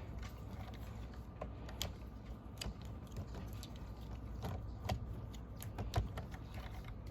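Scattered small clicks and taps of plastic parts of a Roomba robot vacuum being handled and taken off by hand.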